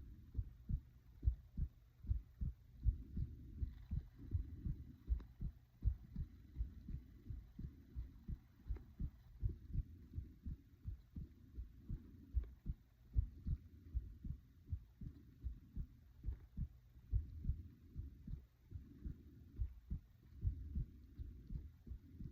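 A person's heart beating steadily, a regular rhythm of short low beats, with slow breathing swelling in and out every few seconds beneath it.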